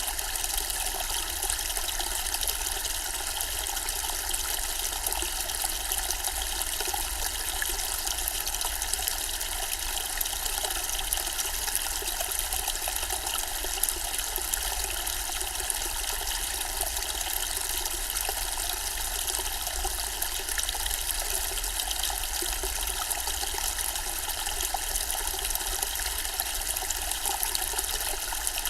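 Zen-style water fountain, water running and splashing steadily without change, with a faint low rumble underneath.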